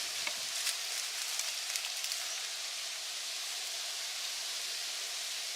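Food sizzling over a wood fire: a steady hiss with a few small pops and crackles in the first couple of seconds.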